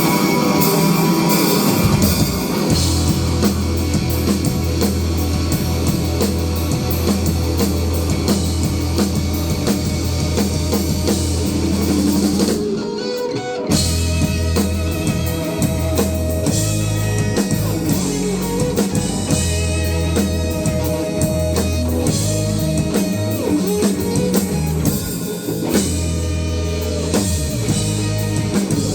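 Live rock band playing: electric guitars, bass guitar and drum kit, with a short break about thirteen seconds in before the full band comes back.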